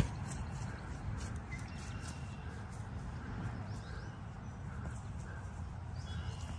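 Wind buffeting the phone's microphone as a steady low rumble, with one sharp thud right at the start: a child's foot kicking a soccer ball on grass.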